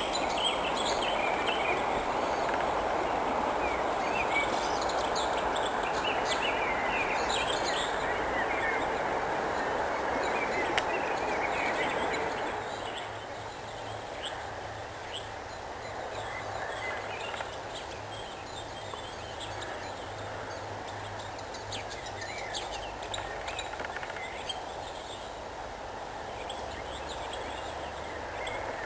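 Songbirds singing, a mix of chirps and trills, over a loud steady rumble of distant noise. The rumble fades out about twelve seconds in, and the birdsong carries on over a faint low hum.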